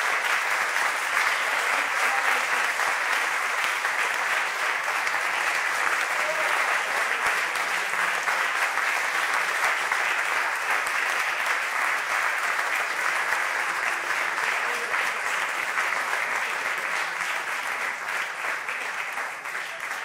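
Audience applauding: dense, steady clapping that eases off slightly near the end.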